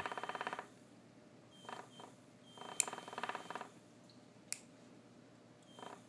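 Small electronic buzzer in a reed-switch circuit, buzzing with a rapid rasping pulse and switching on and off as the magnet closes and opens the reed switch. The buzz cuts off about half a second in, then comes back in several short bursts, with two sharp clicks between them.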